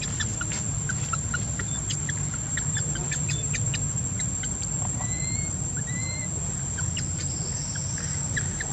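Outdoor ambience: a steady high insect drone with scattered short chirps, over a low steady hum. About five and six seconds in come two short whistled calls.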